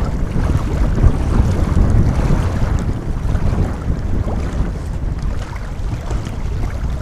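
Wind buffeting the microphone: a low rumble that swells and dips with the gusts.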